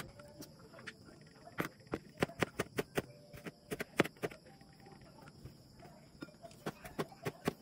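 Chef's knife mincing fresh ginger on a plastic cutting board: a run of sharp, irregular knocks of the blade striking the board, a few per second.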